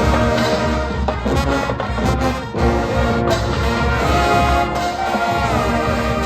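Marching band playing, with the brass section carrying sustained chords and melody.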